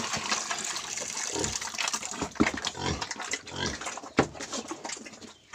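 Piglets grunting and jostling as they feed at a trough, while wet slop is poured in from a bucket.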